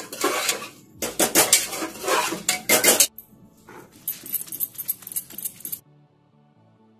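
A metal spoon scrapes in an aluminium pot for about a second. Then a stone roller is rubbed back and forth over wet spice paste on a flat grinding stone (sil-batta), making repeated rasping scrapes that stop about six seconds in.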